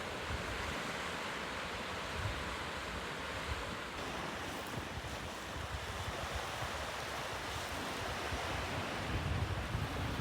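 Sea surf washing on the shore, a steady hiss of breaking waves, with wind buffeting the microphone in low gusts that grow stronger near the end.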